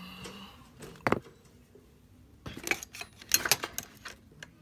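Small hand tools clicking and rattling against a hard work surface as they are handled: one sharp click about a second in, then a quick run of clicks and rattles.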